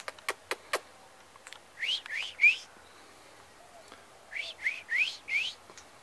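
Australian king parrot whistling calls: a quick run of three short rising whistles, then a run of four more. Near the start, a few sharp clicks from a king parrot cracking seeds in its beak.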